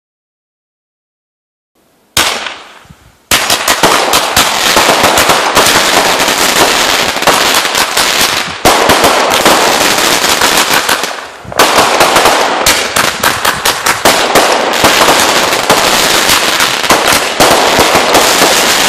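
Digital silence for about two seconds, then a single bang that dies away, followed about a second later by a long, dense run of rapid firecracker cracks from consumer fireworks. The cracks crackle on continuously like a firecracker string, dipping briefly twice before picking up again.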